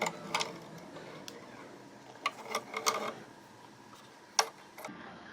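Scattered small clicks and faint handling noise from the bobbin area of a sewing machine as tangled thread is pulled out, with a sharper click a little over four seconds in.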